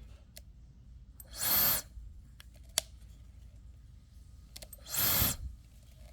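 Xiaomi H501 hair dryer blowing in two short bursts, each cutting out after under a second, with a few sharp clicks in between: the dryer stopping on its error instead of running on.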